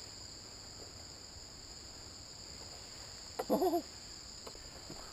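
Steady high-pitched chirring of insects in the grass field, with a brief wavering pitched sound about three and a half seconds in.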